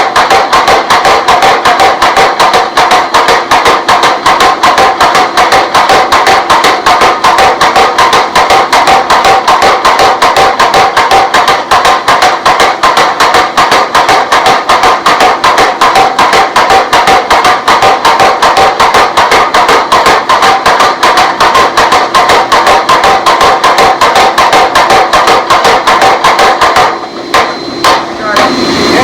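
Power hammer pounding hot 4142 chromoly steel in a fast, even run of blows to draw out a tomahawk blade. Near the end the run stops and a few single strikes follow.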